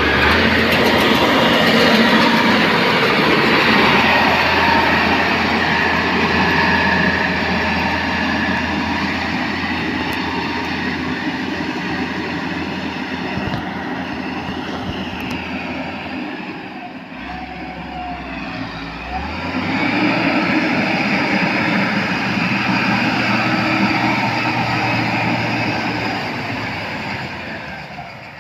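Mitsubishi motor grader's diesel engine running under load as its blade cuts and drags dirt along the road. The sound drops for a few seconds a little past the middle, then swells again.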